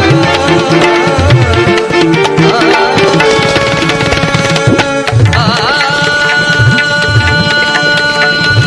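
Indian classical dance music: tabla drumming under a held, wavering melodic line, which breaks off briefly about five seconds in and then comes back.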